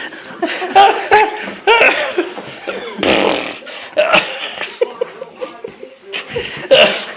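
People laughing in short bursts, with breathy exhales and a few sharp clicks as they play with a puppy.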